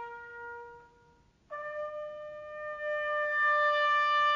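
A single brass instrument holds a long note that fades away about a second in; after a brief gap it sounds a higher note and holds it steadily.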